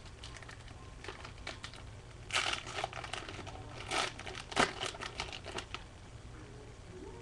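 Crinkling and tearing of a trading-card pack wrapper being opened, with louder crackles about two and a half and four seconds in.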